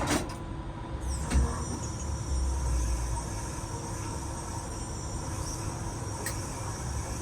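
Tower crane machinery running with a steady electric hum and several fixed whining tones as the crane slews left. A deeper rumble swells about a second in and fades after two seconds, and there are a couple of faint clicks.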